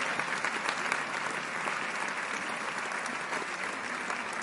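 Theatre audience applauding: many hands clapping at once in a dense, steady wash of claps.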